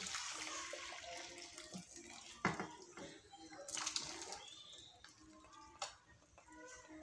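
Hot soup broth poured from a pot into a glass baking dish, a splashing stream for the first second or so, then chunks of pork and vegetables sliding in with a second pour near four seconds. Two sharp knocks, one about two and a half seconds in and one near the end.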